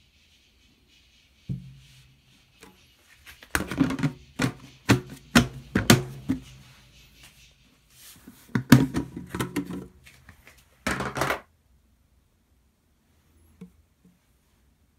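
Snap-on plastic lid being worked loose and lifted off a clear plastic food-storage container. Two runs of sharp plastic clicks and knocks a few seconds apart are followed by a short scuffing rustle.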